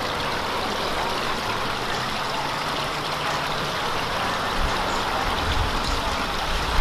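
Small rock waterfall splashing steadily into a garden koi pond: an even rush of falling water. A low rumble comes in near the end.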